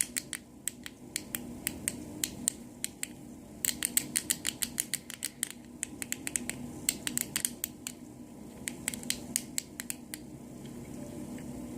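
Plastic buttons on a fidget cube being pressed over and over: a quick, irregular run of sharp clicks in bursts, thinning out and stopping about ten seconds in.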